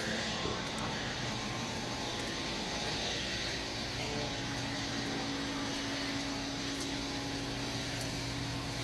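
Steady machinery drone with a constant low hum; a second, higher steady hum joins about four seconds in.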